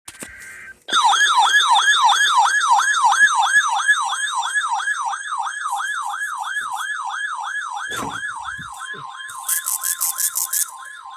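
Electronic siren in a fast yelp, about three falling sweeps a second, starting after a brief high tone and slowly fading. Near the end a steady single-pitch alert tone joins it, along with a short run of rapid high-pitched pulsing.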